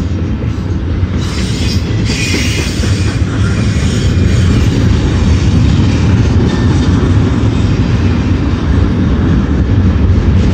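Double-stack intermodal well cars of a CSX freight train rolling past close by: a loud, steady rumble of steel wheels on rail, with a brief high wheel squeal about one to three seconds in.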